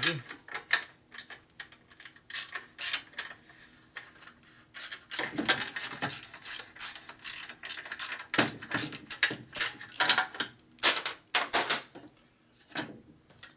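Ratchet wrench clicking in quick runs, with metal clinks, as the exhaust pipe is unbolted from the motorcycle.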